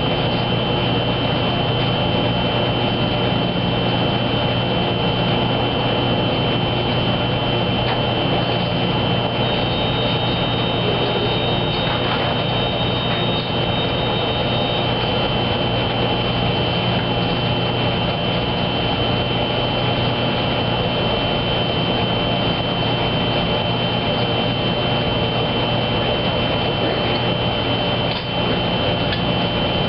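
Wascomat Junior W73 commercial front-load washer running steadily at speed, most likely in its spin, with a constant high-pitched whine over a low hum.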